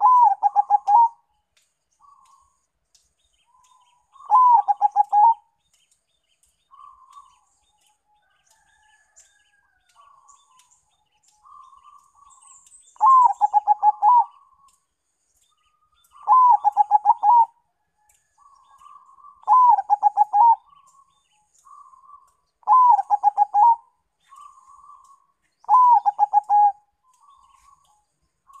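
Zebra dove (perkutut), a Bangkok × local cross, singing its cooing song: seven phrases, each a high opening note followed by a quick run of short coos lasting about a second. The phrases come every three seconds or so through the second half, with a long gap near the start, and soft single coos in between.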